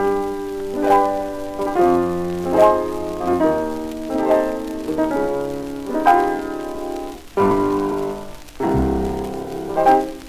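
A 1913 Amur horn gramophone playing a shellac record: piano music, with separate struck notes coming one after another.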